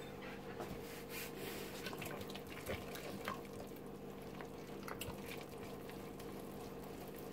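A whisk stirring thick, wet hot-process soap paste in a stainless steel pot, soft wet squishing with scattered light clicks of the whisk against the pot, as warmed superfat oils are mixed into the gelled soap.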